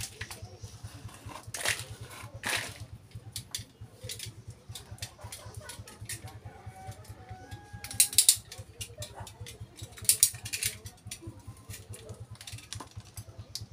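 Utility knife clicking and scraping as its blade works at a coconut husk and potting soil, with louder rasping scrapes about 8 and 10 seconds in.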